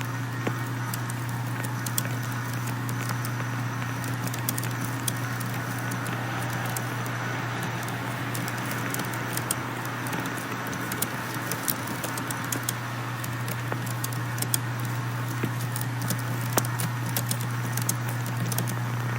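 Winter room tone: a steady low hum with many scattered small crackles and clicks, which come more often in the second half.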